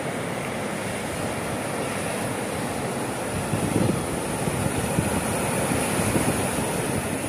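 Sea surf breaking and washing up a sandy beach: a steady rushing wash with a low rumble that swells about halfway through.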